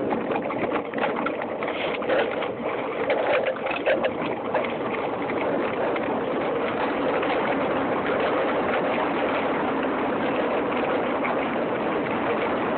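Steady rushing of wind and tyres crunching over loose gravel during a fast descent of a dirt track, with clattering knocks through the first few seconds that then settle into an even rush.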